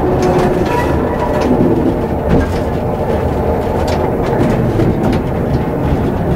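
Vintage tram running along the track, heard from inside the car: a steady rumble of wheels on the rails with scattered clicks.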